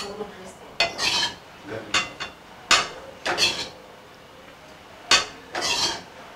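Steel spoon scraping and knocking inside a steel kadai as thick curry gravy is scooped out into a serving bowl: a series of short metallic scrapes and clinks, with a pause about four seconds in.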